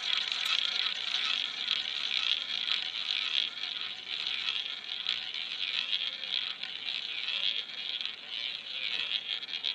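Roulette ball rolling around the track of a spinning roulette wheel: a continuous high-pitched whirring rattle that swells and eases.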